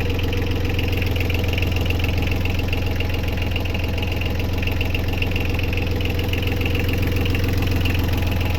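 A boat's small engine ticking over steadily at idle, running smoothly.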